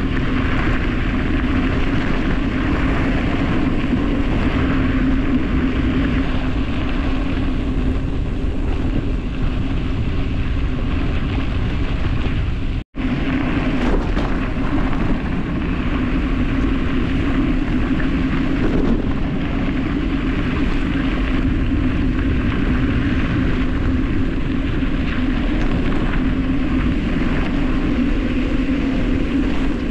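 Steady rushing wind noise on the microphone mixed with the rumble of tyres on a dirt road during a fast descent. It cuts out for an instant a little before halfway.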